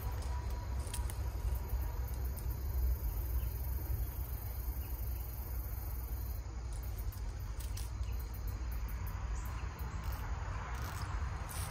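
Crickets chirping steadily, high and thin, over a steady low rumble.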